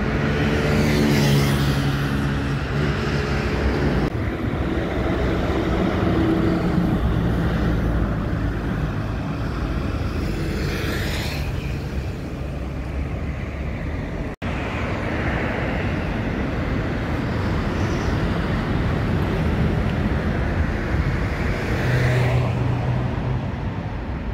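City buses and other traffic passing along a busy avenue, engines running as vehicles go by one after another, with steady road noise between.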